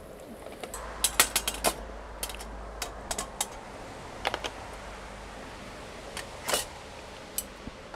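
Light clicks and clinks of aluminium camping cookware and a utensil being handled, in irregular bunches, with a cluster of quick knocks about a second in and a few more later.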